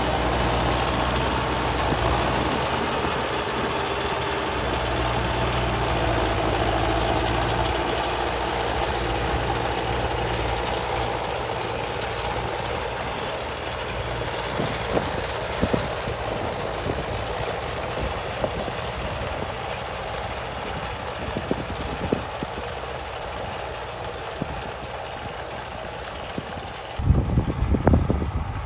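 New Holland T5060 tractor's diesel engine working under load as it pulls a Kverneland 6716 round baler, growing steadily fainter as the rig moves away across the field. Near the end, wind buffets the microphone.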